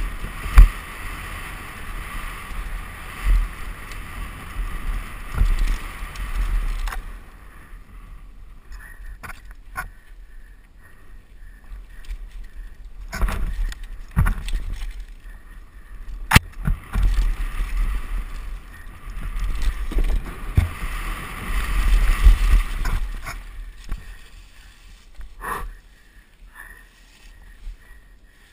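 Downhill mountain bike ridden fast down a dirt trail, heard from a helmet camera: wind rushing over the microphone with tyre noise and frame and chain rattle, and sharp knocks from bumps and landings, the loudest about half a second in and another about two-thirds of the way through. The rush drops away in a calmer stretch in the middle and again near the end as the bike slows.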